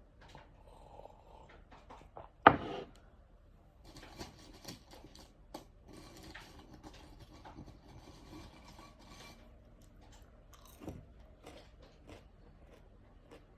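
Small handling noises: scattered clicks, scrapes and rustling, denser for several seconds in the middle, with one short loud sound about two and a half seconds in.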